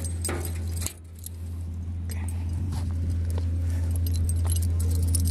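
A bunch of keys jangling and clinking after being turned in a cabinet door lock, with a steady low hum underneath that dips about a second in and then grows steadily louder.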